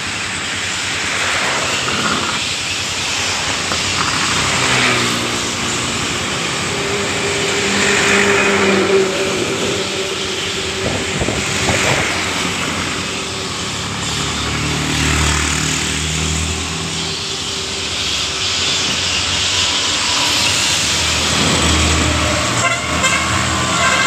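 Road traffic: a continuous rush of engine and tyre noise with vehicle horns sounding now and then, the longer horn notes about a third of the way in and again past the halfway point.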